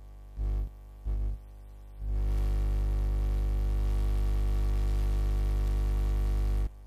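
Loud steady electrical hum-buzz that cuts in abruptly twice for a moment, then holds for about five seconds before cutting off suddenly near the end.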